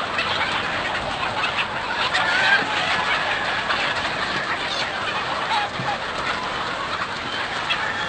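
A huge flock of chickens, many birds clucking and calling over one another in a dense, steady din.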